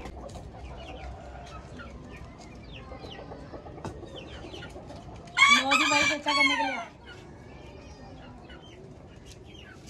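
A rooster crows once, a loud call about a second and a half long starting about five and a half seconds in, over quieter clucking from other chickens.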